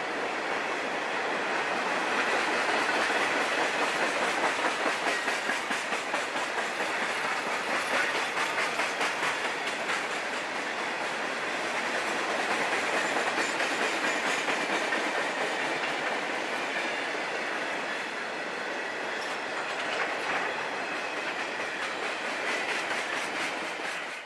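Conrail freight train of open-top hopper cars rolling past: a steady rumble of steel wheels on rail with a rhythmic clickety-clack over the rail joints, loudest a few seconds in.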